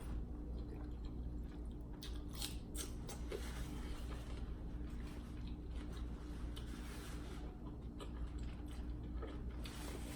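Close-miked eating sounds: chewing, with soft wet mouth smacks and a few short clicks and crunches. A steady low hum runs underneath.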